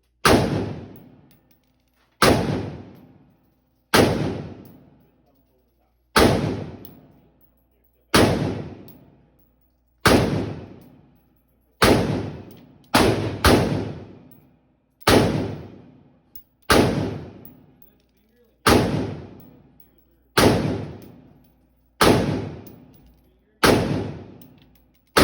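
AR-15 rifle firing 5.56 NATO rounds in semi-automatic: about fifteen single shots, mostly about two seconds apart with a quicker pair near the middle, each followed by a ringing echo that dies away over about a second.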